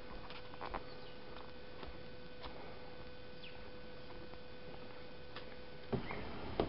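Footsteps on a wooden boardwalk: scattered light ticks and knocks over a faint steady hum, with two heavier footfalls on the boards near the end.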